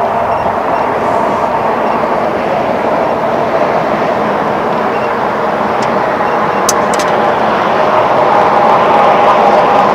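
Boat motor running steadily, getting slightly louder near the end, with a few light clicks about seven seconds in.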